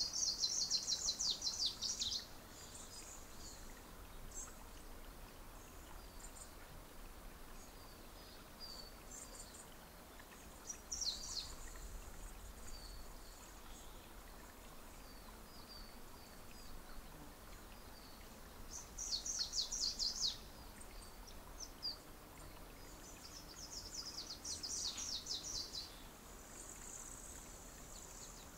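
Small songbird singing high, rapid trills in bursts of about two seconds, four times, with scattered short chirps between them and a held high note near the end.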